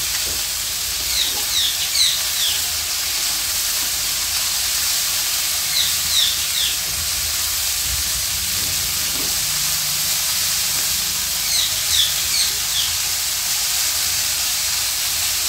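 Shredded cabbage, carrot and onion sizzling in oil in a nonstick kadhai while a spatula stirs them, a steady hiss. Three short clusters of high squeaks come about every five seconds.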